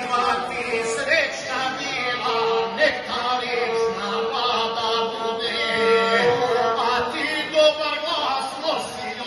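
A man singing in the chanted, declaiming style of a gusle epic, a verse wedding toast, accompanied by the gusle, the single-string bowed fiddle of the Balkans. The gusle holds a steady, nasal note that breaks off briefly every second or so under the voice.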